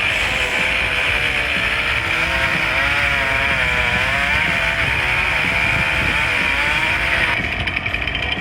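Chainsaw running at high speed as it cuts into a tree, its engine pitch wavering up and down under the load of the cut. Near the end the sound changes suddenly.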